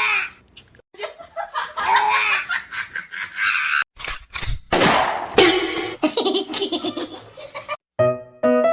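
A person laughing in short bouts, then a few seconds of loud noisy bursts, with piano music starting near the end.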